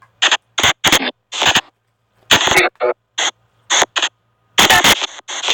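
Spirit box app on an Android phone sweeping in quick fragments: short bursts of hissy, speech-like radio or noise sound, two or three a second, each cut off by a moment of dead silence.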